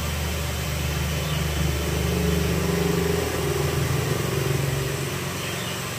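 A motor vehicle's engine running close by, a low steady hum that fades about five seconds in.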